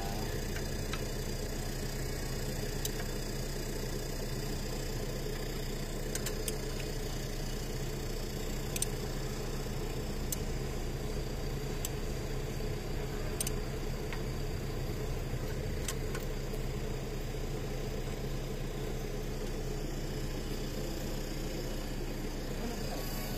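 An engine idling steadily, with a few light clicks scattered through.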